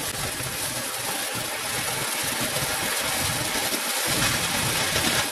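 Magical-torch firework fountain spraying sparks and fireballs with a steady, loud hiss, cutting off at the end.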